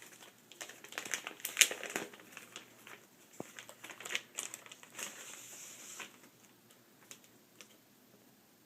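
Plastic packaging crinkling and rustling as a replacement laptop screen is unwrapped, with irregular sharp crackles and one louder crack under two seconds in; it goes quieter for the last couple of seconds.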